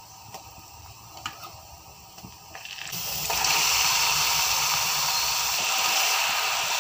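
Raw pork pieces sizzling in hot oil in a frying pan. A few light clicks at first, then about three seconds in a loud, steady sizzle starts as the meat goes into the pan, and it holds.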